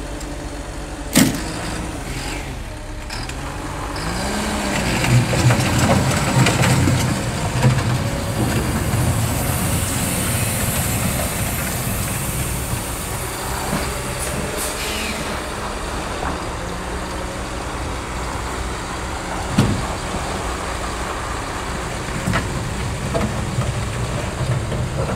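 Diesel engines of a Cat crawler dozer and a semi truck working under load as the dozer tows the truck uphill on a strap. An engine revs up and settles about four seconds in, and there are sharp clanks about a second in and again near twenty seconds.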